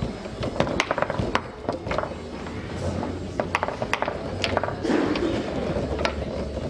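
Foosball in play on a Tornado table: sharp, irregular clicks and clacks of the ball striking the players and walls, with the rods rattling.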